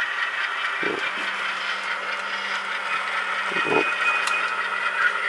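Steady engine-like running hum from sound-equipped model diesel locomotives on a model railway layout, with two soft low thumps, about a second in and near four seconds.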